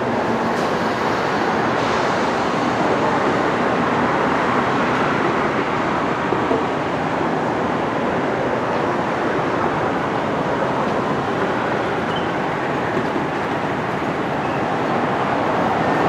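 Steady, even roar of distant vehicle noise that holds without a break.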